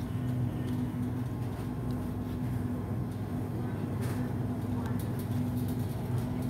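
Supermarket ambience: a steady low hum, typical of refrigerated display cases and store ventilation, under the rumble and light rattle of a loaded wire shopping cart being pushed across a hard floor.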